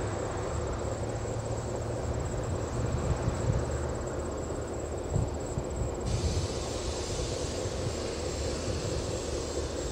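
Freight train passing: a low, steady diesel locomotive drone with the noise of rolling cars, which eases off about four seconds in.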